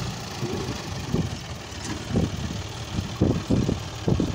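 Diesel engine of a John Deere tractor running as it pulls a trailer loaded with soil. It is a steady low rumble with irregular surges in the second half.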